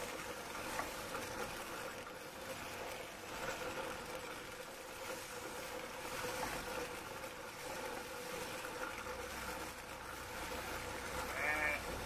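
Sheep-shearing machine handpiece running with a steady hum as it cuts through the fleece. A sheep bleats once near the end.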